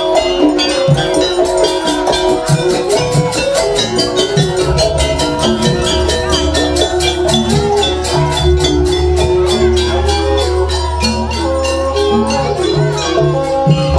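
Banyuwangi gamelan ensemble playing jaranan music: melodic notes on bronze kettle gongs with kendang drum strokes over a fast, even beat of about four strikes a second. A deep gong hum comes in about five seconds in.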